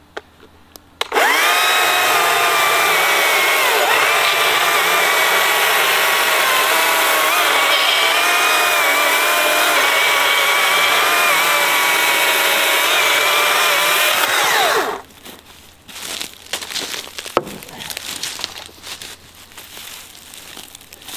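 Stihl MSA 200 C battery chainsaw cutting through a stump of very hard she-oak. Its electric motor whines steadily for about fourteen seconds, sagging in pitch briefly as the chain bites, then winds down and stops. Light knocks and handling noise follow.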